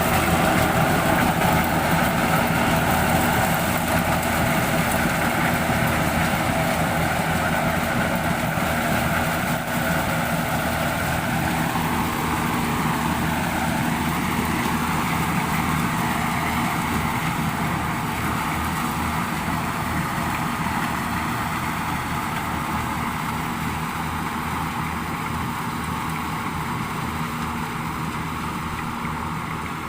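An engine running steadily without stopping, slowly growing quieter.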